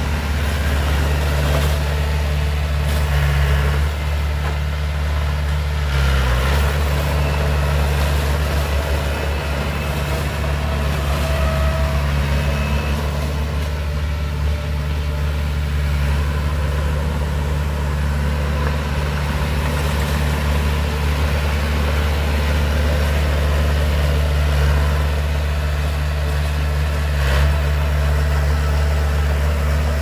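Diesel engine of a Komatsu D20 small crawler bulldozer running steadily as the machine pushes dirt, with a deep, even hum.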